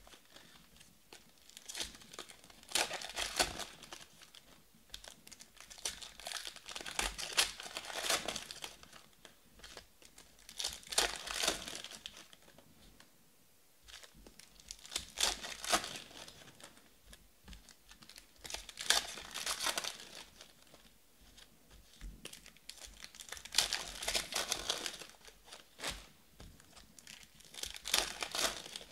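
Foil trading-card packs being torn open and their wrappers crinkled, in bursts every three to four seconds with quieter handling between.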